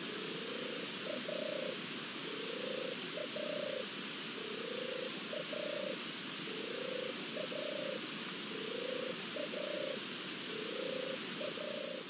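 European turtle dove purring its song: a run of about six soft, low phrases, each a rising purr followed by two short notes, repeating roughly every two seconds over a steady hiss.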